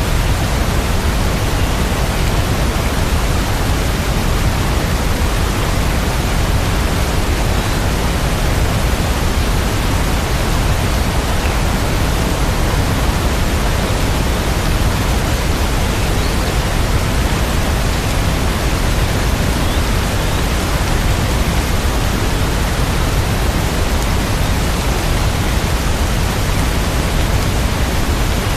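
Steady, even hiss of heavy rain, with no single drops, thunder or music standing out.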